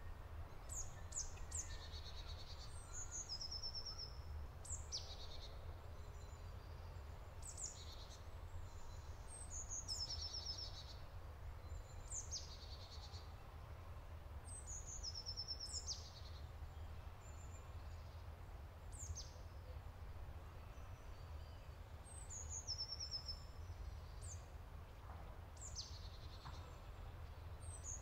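A songbird calling over and over: a sharp, high down-slurred note followed by a short rapid trill, the phrase repeating every two to three seconds, over a steady low rumble.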